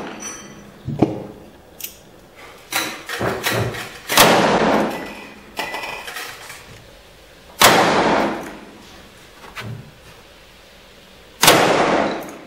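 Adams percussion revolver firing three black-powder shots, about three and a half to four seconds apart, each echoing off the walls of an indoor range. Quieter clicks and knocks fall between the first shots.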